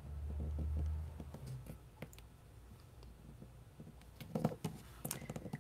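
Hands pressing a patterned-paper panel down onto a card base on a work mat: a low rumble of handling for about the first second, then light paper clicks and taps, with a few louder taps near the end.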